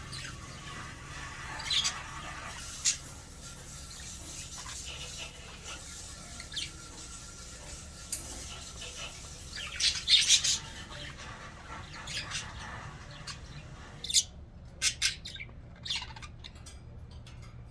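Budgerigars chirping and squawking in short, scattered calls, with a burst of louder chirps about ten seconds in and a few sharp calls near the end.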